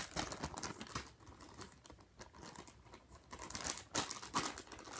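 Clear plastic zip-top bag crinkling as it is handled, with irregular crackles that are louder at the start and again about three and a half to four seconds in.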